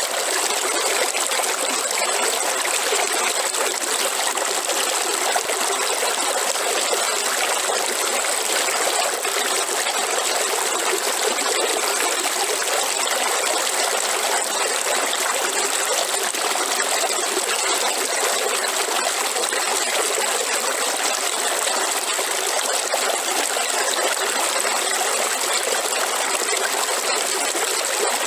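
River water flowing in a steady, even rush with trickling, and a thin steady high-pitched tone above it.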